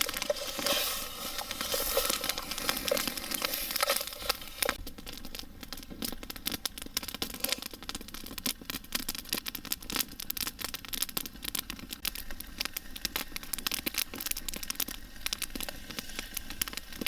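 Floured beef chunks browning with garlic and shallots in a billy pot over an open fire, sizzling with a dense stream of small pops and crackles. It is louder and busier for the first four seconds or so, then settles to a steadier sizzle.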